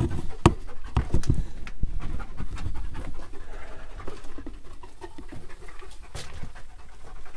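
A dog panting in quick, steady breaths, with a few sharp knocks in the first second or so.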